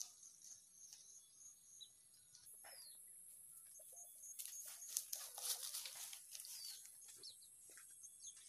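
Faint outdoor ambience: short bird chirps scattered over a steady high hiss, busiest about halfway through.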